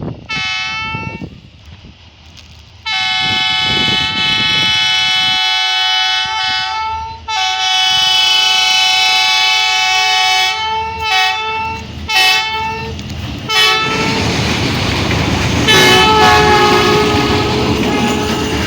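Train horn sounding in a series of blasts: a short one, two long ones of several seconds each, a few short toots, and a final long blast. Over the last few seconds the horn sounds over the loud rushing noise of the moving train.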